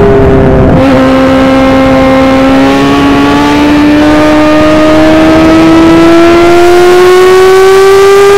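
Onboard sound of an F1000 formula car's 1000 cc motorcycle-derived engine under power. The engine note drops once, about a second in, at a gear change, then climbs steadily as the car accelerates.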